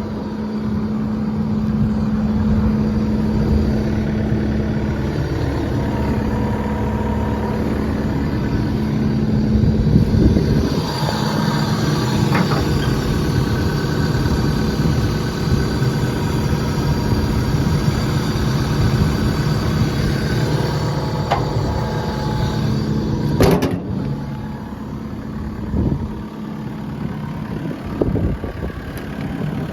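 Caterpillar 308D CR excavator's diesel engine running steadily with a hydraulic whine as the machine moves, with one sharp knock about two thirds of the way through.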